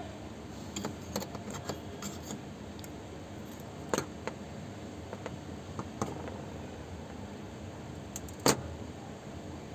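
Small metallic clicks and taps of LED bulb parts and hand tools being handled on a tabletop: a quick cluster in the first couple of seconds, single clicks about four and six seconds in, and the loudest about eight and a half seconds in, over a steady background hiss.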